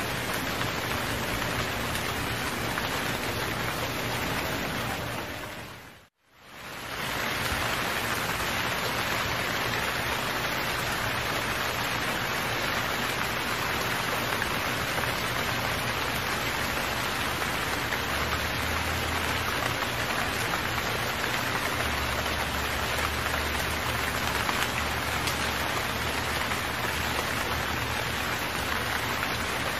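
Rain falling steadily. About six seconds in, the sound fades out to silence for a moment and then fades back in.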